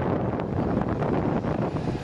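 Wind buffeting the microphone, a steady rumbling noise with no let-up.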